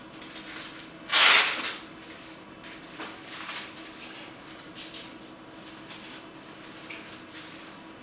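Handling noise from X-ray positioning straps and lead protective gear: one loud, brief rasp about a second in, then a few softer rustles, over a faint steady hum.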